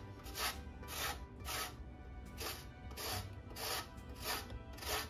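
A lemon being grated on a stainless steel box grater for zest: repeated rasping strokes, about two a second, with a short pause about two seconds in. Background music plays underneath.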